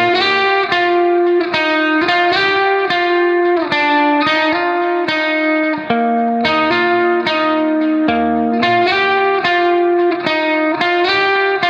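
Instrumental background music: a melody of plucked notes, guitar-like, in a steady rhythm.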